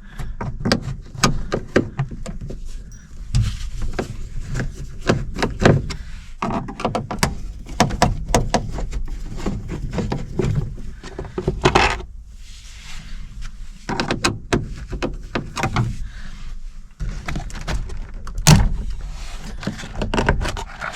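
Dashboard and instrument-cluster parts being pulled apart by hand: many irregular clicks, knocks and thunks, with handling noise between them.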